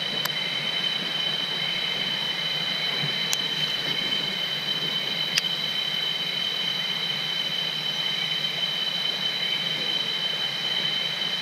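Steady high-pitched drone of rainforest insects, two unbroken tones, over a constant hiss of stream water. A few faint sharp clicks, the clearest about five seconds in.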